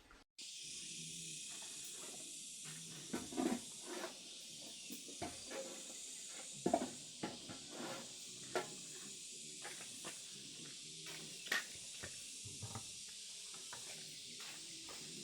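A steady, high-pitched hiss with scattered light knocks and clicks.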